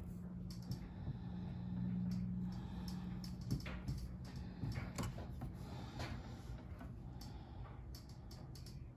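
Small clicks and taps of beading supplies and tools being handled on a table, irregular and scattered, over a steady low hum.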